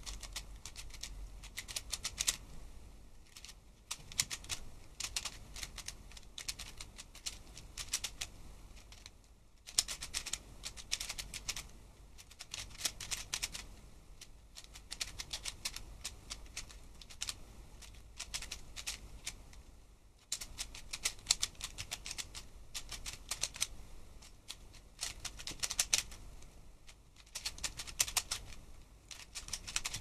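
A 3x3 puzzle cube being turned quickly in a speedsolve, its plastic layers clacking in dense rapid runs, with short breaks about 4, 10 and 20 seconds in.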